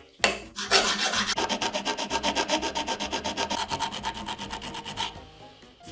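Hand metal file rasping back and forth across the edge of a metal axe head clamped in a vise, sharpening the blade in quick, even strokes, about five a second. The strokes stop abruptly near the end.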